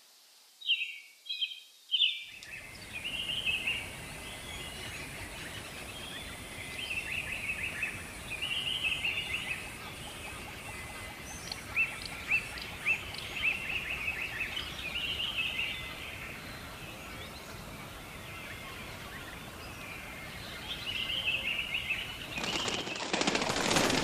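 Small birds chirping, with three loud chirps in the first two seconds and then a steady stream of repeated chirps over a constant noisy hiss of the outdoors. A louder rushing noise builds up near the end.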